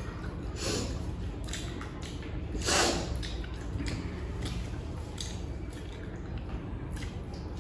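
Eating by hand: fingers squishing rice and curry, with chewing and short wet mouth sounds, one louder about three seconds in, over a steady low hum.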